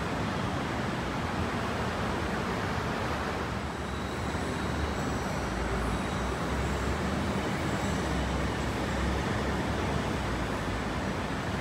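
Steady rumbling background noise on an elevated metro platform, with a deeper rumble swelling in the middle and faint high tones above it.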